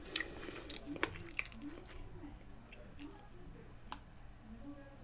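Close-up chewing of a cheeseburger: soft, wet mouth sounds with several short, sharp clicks.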